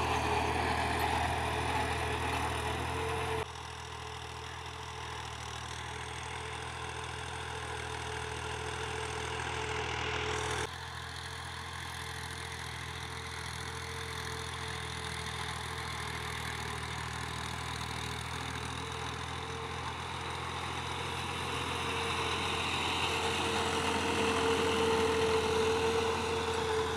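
Ghazi tractor's diesel engine running steadily as it pulls a tine cultivator and a wooden levelling plank through tilled soil, with a steady whine running along. The level drops suddenly twice, about 3.5 and 10.5 seconds in, and grows louder near the end as the tractor comes close.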